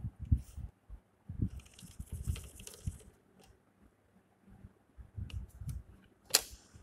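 Drawing instruments handled on a drawing board: irregular low bumps and a scraping rustle as the parallel rule is slid down the paper, then a sharp click near the end as a plastic set square is set down.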